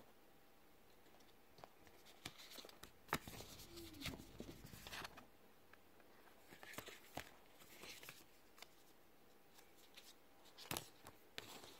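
Quiet handling of a paper instruction booklet and white cardboard packaging: scattered light rustles and taps against near silence, busiest a few seconds in and again near the end.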